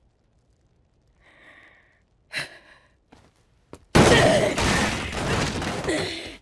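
A sharp knock about two seconds in, then, about four seconds in, a loud crash of wooden tables and chairs being smashed by a flying kick, clattering and breaking apart for a couple of seconds.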